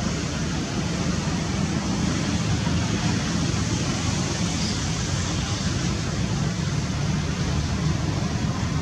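Steady rushing background noise with a low rumble and no distinct events.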